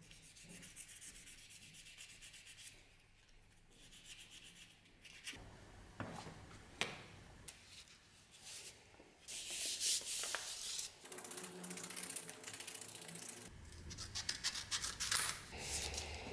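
Hand rubbing on the knife handle in steady strokes, like sandpaper. It gives way to crinkling and rustling as a paper template is folded and pressed around the blade.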